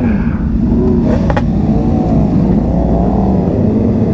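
Sport motorcycle engines running hard at freeway speed, the revs rising and falling, with one short sharp crack about a second in, then settling into a steady drone.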